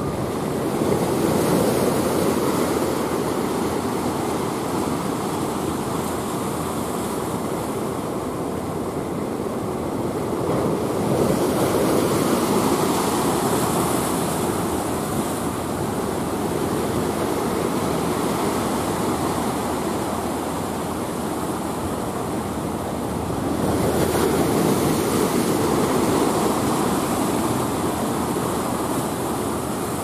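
Sea waves breaking and washing over a rocky shore, a steady rush that swells louder three times as bigger waves come in.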